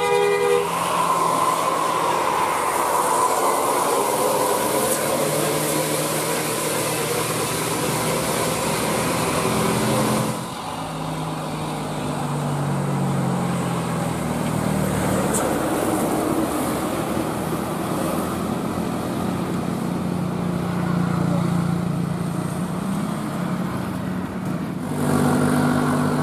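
Bus engine running with road noise, its pitch rising and falling as it pulls and changes speed. The hiss drops away suddenly about ten seconds in. A horn note cuts off at the very start, and a horn starts sounding about a second before the end.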